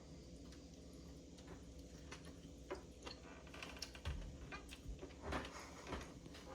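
Faint scattered clicks and crackles of a cooked spiny lobster's shell and meat being pulled apart by hand, growing busier about halfway through, with a few soft thumps near the end.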